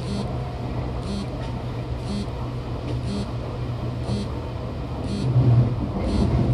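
Interior sound of a Seibu 2000 series electric train: a steady low hum and rumble, with a short chime-like tone repeating about once a second. A brief louder low surge comes about five seconds in.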